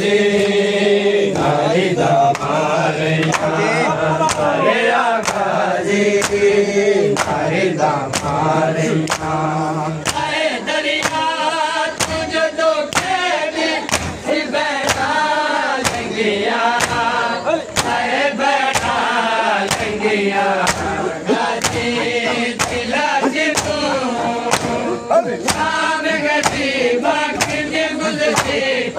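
Men chanting a noha in unison while a crowd of bare-chested mourners beats their chests in matam, the sharp hand-slaps landing together in a steady rhythm under the chant.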